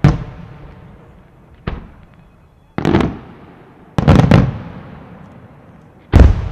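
Aerial firework shells bursting: a string of loud booms a second or so apart, each trailing off in a long echo. There is a quieter one just under two seconds in and a close double boom about four seconds in.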